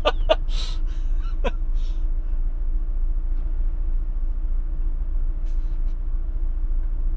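Fiat Fiorino van's engine idling while stopped, a steady low rumble heard inside the cab with a faint constant hum over it.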